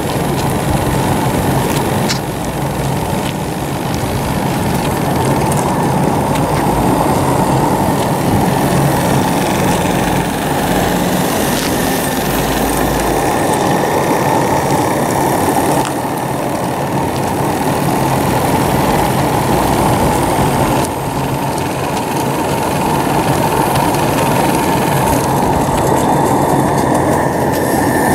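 Live-steam model truck running under steam: its small steam engine and boiler make a loud, steady rush and hiss.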